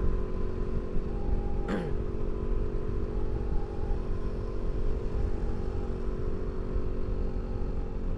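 Motorcycle engine running at a steady cruising speed, with wind and road rumble; a single sharp knock about two seconds in.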